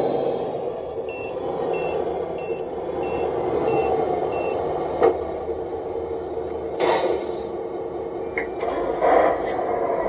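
RC dump truck reversing, its reversing beeper giving about seven short high beeps, roughly one and a half a second, over a steady running whir. A sharp click follows about five seconds in, and a clunk near seven seconds.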